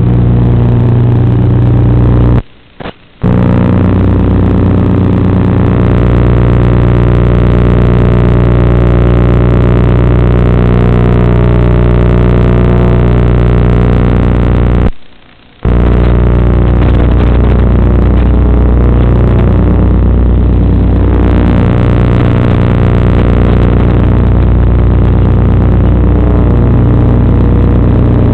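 FPV quadcopter's motors and propellers, a loud, steady hum with slight shifts in pitch, carried over the analog video link. It cuts out abruptly twice, briefly about two and a half seconds in and again about fifteen seconds in.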